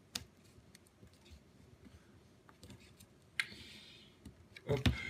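Small scissors snipping and working around the crimp of a plastic shotgun cartridge hull: scattered faint clicks of the blades, a short rasp about three and a half seconds in, and a couple of louder knocks near the end.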